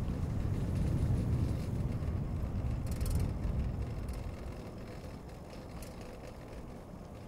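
Low rumble of city street traffic and riding noise heard from a moving bicycle, easing after about four seconds, with a short high hiss about three seconds in.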